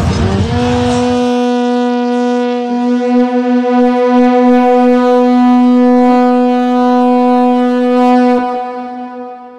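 A war horn blowing one long held note for about eight seconds, wavering slightly partway through, then fading away.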